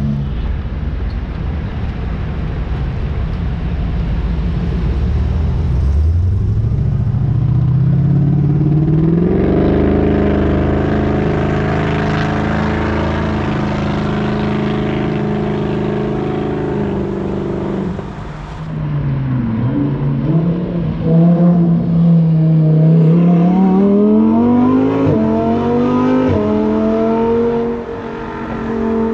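Sports car engines at full throttle. A low rumble gives way to an engine note that climbs and then holds steady at high revs for several seconds. After a break, an engine note drops and climbs again in repeated sweeps as it revs up through the gears.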